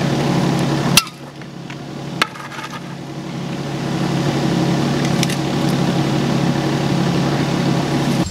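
An engine running steadily, its hum cut off abruptly about a second in with a sharp click. A single knock follows about a second later, then the engine hum swells back up and runs on.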